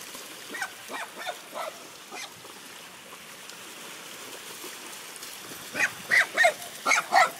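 A dog yipping in short, high barks: a few faint ones in the first two seconds, then about five louder ones in quick succession near the end.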